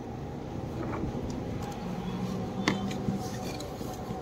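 Steady low background noise in a small workshop, with a faint tap about a second in and a sharper light metal click a little past halfway.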